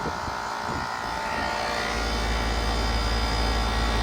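2011 Payne PA12 2-ton central air conditioner's outdoor unit running with a steady hum, its compressor bad according to the owner. A deeper rumble comes in about halfway through.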